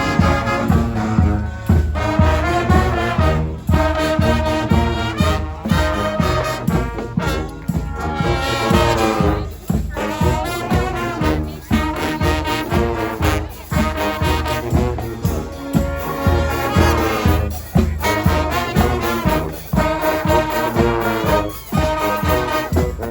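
Street brass band playing: trombones and trumpets carrying the tune over a steady drum beat.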